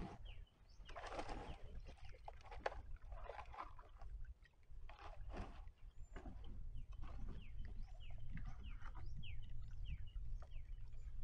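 A sit-in kayak pushing off a muddy bank and being paddled away: a few scraping, splashing paddle strokes in the first half. Many short bird chirps follow through the second half, over a steady low rumble.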